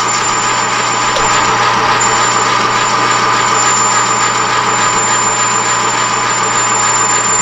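Metal lathe running with the cutting tool feeding into the spinning workpiece, a steady loud cutting noise with a sustained ringing tone. The cut is chattering, which is not the sound the machinist wants.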